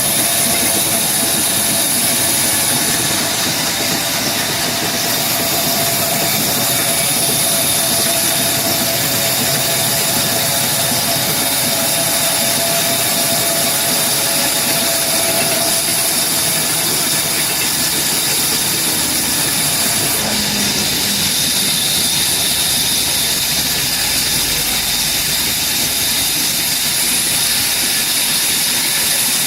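Wood-cutting machinery running steadily with a continuous hissing whine, unchanged throughout.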